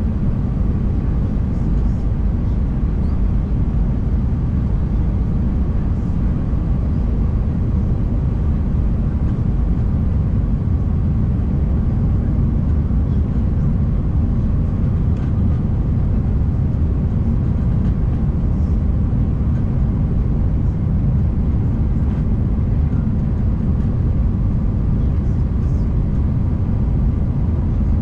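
Airbus A319 cabin noise heard from a window seat: a steady, even rumble of the engines and rushing air during the low descent on approach.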